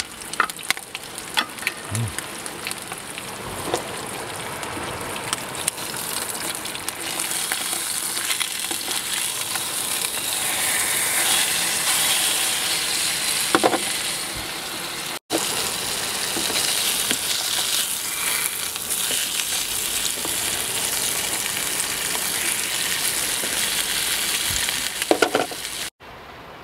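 Food sizzling and frying in a pan, a steady crackling hiss with a few light clicks. It breaks off for an instant about fifteen seconds in and cuts out abruptly just before the end.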